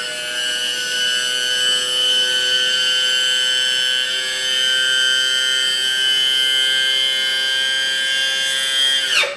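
Electric hydraulic pump of a 1/20 scale metal RC CAT 793D mine truck whining steadily as it drives the two lift cylinders to raise the dump bed, then winding down in pitch as it stops near the end.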